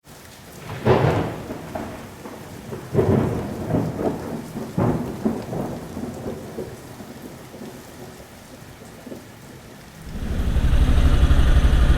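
Thunder rumbling in several rolls that swell and fade, with rain falling. About ten seconds in, a steady motorcycle engine idle takes over, likely the single-cylinder Yamaha XTZ 250.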